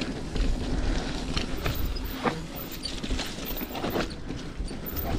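Propain Tyee mountain bike rolling down a wet, leaf-covered dirt trail: a steady rumble of tyres and riding noise, with a few sharp knocks from the bike over bumps.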